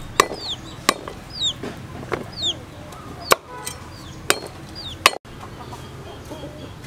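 Knife chopping ginger root on a round wooden chopping block: about five separate sharp knocks. Short falling chicken peeps sound about once a second in the background.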